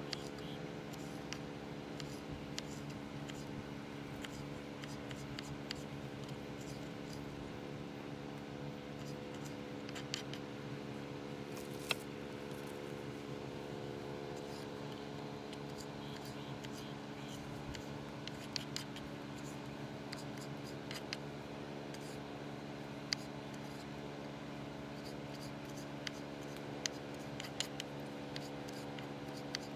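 Kitchen knife slicing tomatoes on a wooden cutting board: soft cutting with scattered sharp taps of the blade on the board, more frequent near the end, over a steady low hum.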